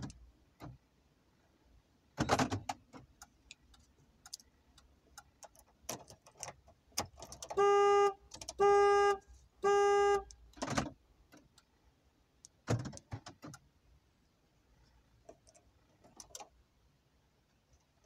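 Land Rover Freelander's horn sounding three short, steady beeps in quick succession midway through. Sharp clicks and clunks from the key, the remote and the car's locks come before and after the beeps.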